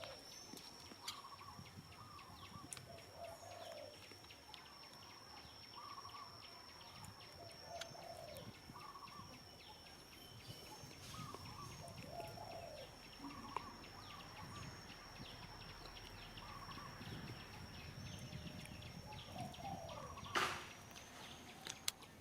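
Faint outdoor ambience of short animal calls repeating every second or two over a steady high whine, with one sharp knock near the end.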